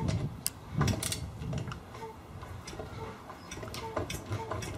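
Honda PA50II Hobbit's 50 cc two-stroke engine turned over slowly by hand through the rear wheel, not yet started. A steady light ticking runs throughout, with low puffs of air as the engine breathes through its exhaust, the strongest near the start and about a second in, and a little repeated squeak from the reed valves.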